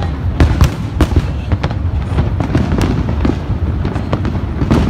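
Large fireworks display going off: a steady run of sharp bangs and booms, about two a second, over a continuous low rumble of further explosions.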